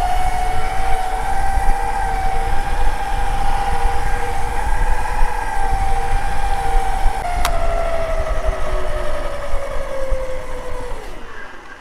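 Drive whine from the Super Turbo 1000 Elite electric scooter's 1000-watt motor and big chain, at full speed on a 48-volt battery, with heavy wind rumble on the microphone. About seven seconds in there is a sharp click, and the whine falls steadily in pitch and fades as the scooter brakes hard to a stop.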